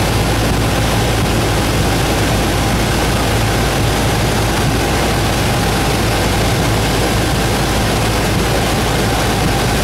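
Light airplane's piston engine and propeller droning steadily in cruise flight, heard inside the cockpit: a low hum under a constant rush of air.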